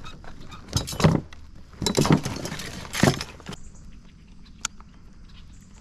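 Fishing gear clinking and clattering in the kayak's tackle crate as a digital fish scale is dug out, in three short bursts about a second apart, followed by a single sharp click.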